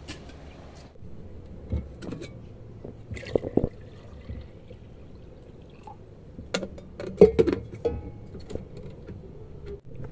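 Food-preparation handling sounds: scattered knocks and clinks of cookware with some liquid sloshing or pouring. The loudest cluster of knocks comes about seven seconds in.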